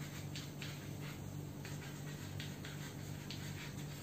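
Chalk scratching on a blackboard in short, irregular strokes as words are written, faint, over a steady low hum.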